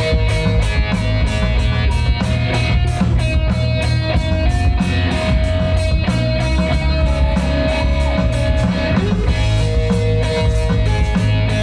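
Live rock band playing an instrumental break: a guitar lead of held notes with occasional bends over a steady drum kit beat.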